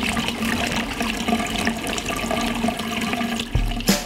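Water running steadily into a darkroom sink. Near the end a music beat with deep bass pulses comes in.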